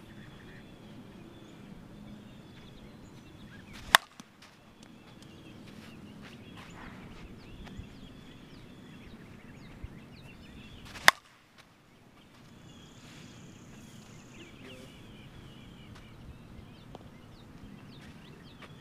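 Two sharp cracks about seven seconds apart as a Mizuno Blackout 28 oz balanced slowpitch softball bat hits pitched softballs.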